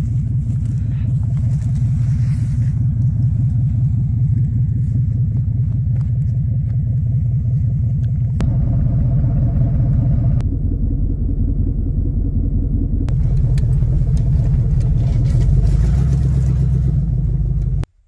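Vehicle engine idling steadily, a low rumble that shifts in tone a few times and cuts off abruptly near the end.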